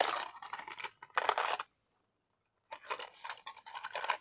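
Minifigure packaging being torn and crinkled open by hand, in two noisy stretches with a pause of about a second between them.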